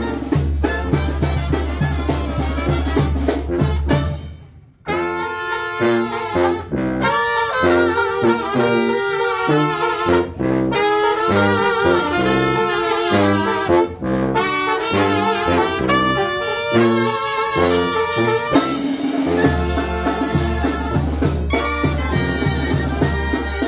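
Brass band music: horns play a melody over a drum beat. The music breaks off briefly about four and a half seconds in, the horn melody carries on without the low beat, and the drums come back near the end.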